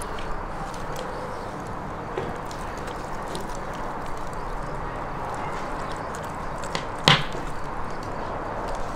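Pastry brush dabbing marinade onto raw whole chickens on a wooden board, with soft taps and small clicks over a steady outdoor background hiss. One sharp knock stands out about seven seconds in.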